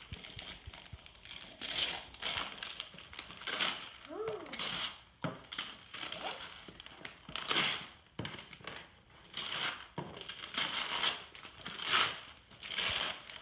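Christmas wrapping paper being ripped and crumpled as a child unwraps a present, in irregular rustling tears about every second or so.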